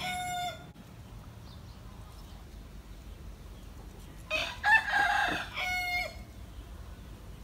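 A rooster crowing twice. The end of one crow is heard at the very start, then a full crow of nearly two seconds comes about four seconds in, finishing on a long held note.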